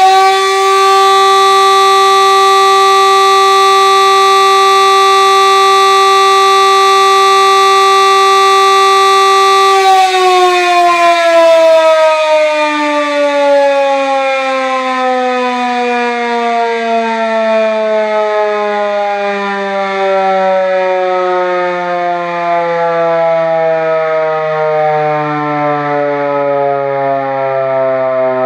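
Elektror S2A air-raid siren, with its rotor turning in the correct direction, holds a steady full-pitch tone for about ten seconds. It then winds down, its pitch sliding slowly and steadily lower.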